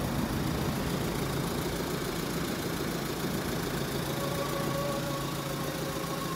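Forklift engine running steadily while it lifts a heavy load, a wooden house frame. A faint steady whine joins the drone about four seconds in.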